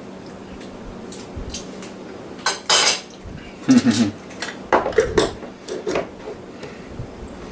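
Metal utensil scraping and clinking against a dish while scooping and spreading queso dip. There are several separate strokes between about two and six seconds in, the loudest around three and four seconds in.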